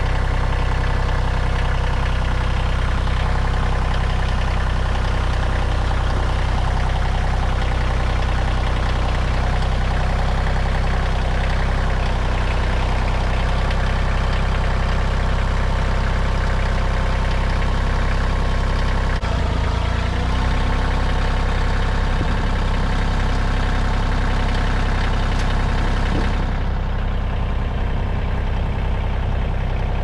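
Tractor engine running steadily while loading a heavy log onto the sawmill deck. Its note shifts about two-thirds of the way through.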